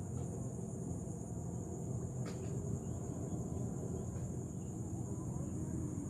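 Steady high-pitched chorus of crickets or other field insects over a low rumbling background noise, with one faint click a little over two seconds in.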